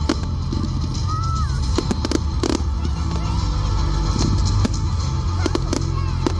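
Fireworks display: a string of sharp bangs and crackles from bursting shells, the loudest about two and a half seconds in, over loud music played for the show.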